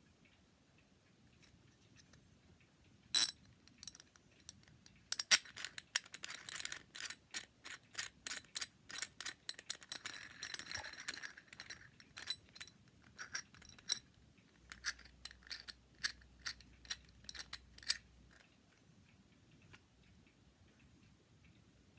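White plastic shower drain parts being handled and fitted together by hand: one sharp click about three seconds in, then a run of quick clicks and rubbing from about five to fourteen seconds, and scattered clicks until about eighteen seconds.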